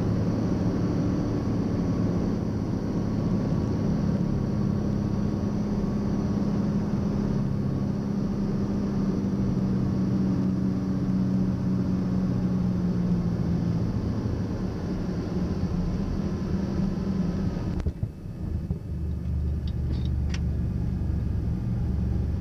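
Cockpit sound of a Piper Malibu's turbocharged six-cylinder engine and propeller, a steady drone through the flare, touchdown and landing rollout. About 18 seconds in the sound changes to a deeper, lower rumble, with a few faint clicks.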